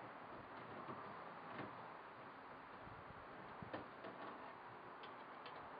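Faint steady hiss with a few light clicks and taps: one about one and a half seconds in, the sharpest about three and a half seconds in, and a small cluster near the end.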